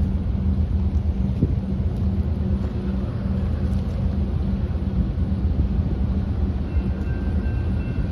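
A steady low rumble with a constant deep hum under it. Faint steady high tones come in about two-thirds of the way through.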